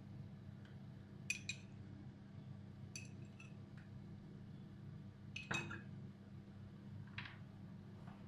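Metal spoon clinking lightly against a glass of milk as it is dipped in and lifted out: a quick pair of clinks about a second in, then single clinks every couple of seconds, the loudest a little past the middle. A steady low hum runs underneath.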